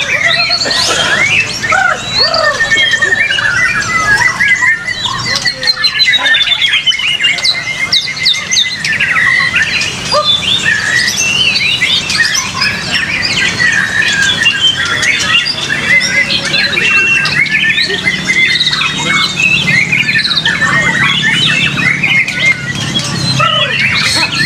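Several white-rumped shamas singing at once, a dense, unbroken tangle of rapid whistles, trills and harsh chatter, over a low background rumble.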